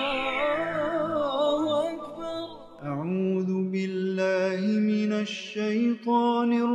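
Intro music: a man's voice chanting a melody, with wavering ornamented notes at first, then long held notes that step between pitches. A falling sweep effect fades out in the first second or so.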